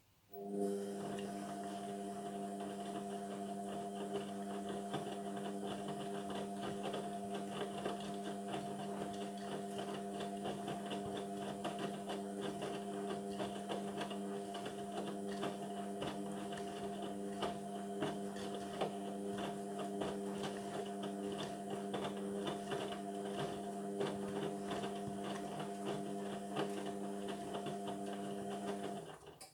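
Indesit washing machine's drain pump running, a steady electric hum with water gurgling through it. It switches on just after the start and cuts off sharply just before the end.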